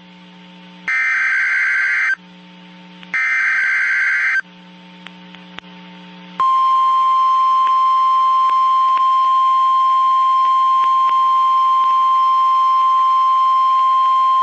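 Emergency Alert System SAME header: two warbling digital data bursts about a second long, a second apart. About six seconds in, the NOAA Weather Radio warning alarm starts, a single steady high tone that holds. It is the attention signal that announces a tornado warning.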